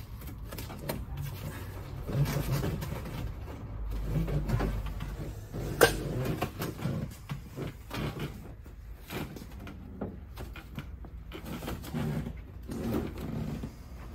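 Rustling and scuffing of a car headliner being pulled taut and pressed up against the roof by hand, with a single sharp knock about six seconds in.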